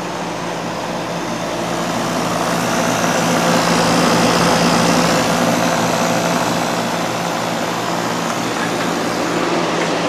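Homemade air-to-water heat pump running steadily: the refrigeration compressor hums under the rush of air from its condenser radiator fan. The sound grows somewhat louder around the middle.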